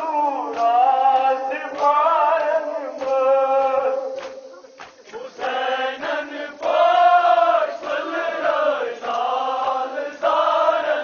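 A group of male voices chanting a Kashmiri nohay, a Muharram lament, in sung phrases with a short lull a little before the middle. Sharp strokes recur under the voices.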